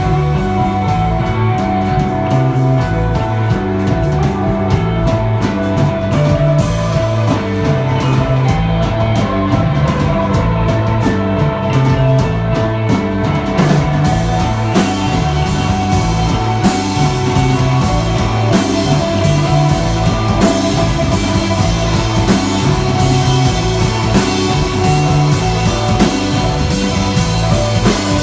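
Desert-rock band playing live: drum kit, electric guitar and bass in a steady, loud groove, the drummer's cymbal hits coming thicker from about halfway through.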